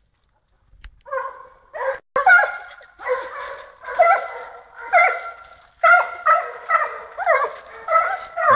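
Pack of boar-hunting hounds baying, giving tongue as they work a wild boar out of its cover. After about a second of near silence, the bays come fast and overlapping, several a second.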